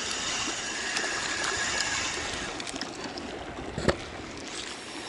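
Small waves lapping and splashing against a concrete reservoir bank, a steady wash of water, with a single sharp knock about four seconds in.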